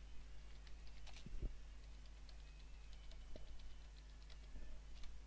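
Computer keyboard keys clicking softly and irregularly as a command is typed, about fifteen keystrokes.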